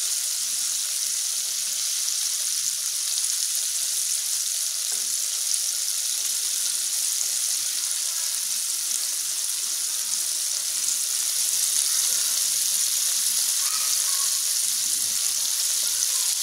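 Flour-coated chicken pieces deep-frying in hot oil: a steady, even sizzle and bubbling.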